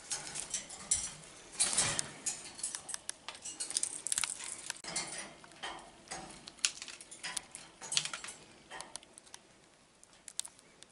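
Indian ringneck parakeet nibbling at a treat held in its foot, a run of small crunching clicks and crackles that thins out to a few ticks near the end.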